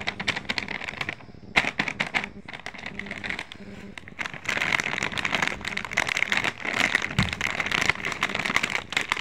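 Crinkling and rustling of metallised plastic potato chip packets as they are rubbed, picked up and turned over in the hand, louder and denser in the second half.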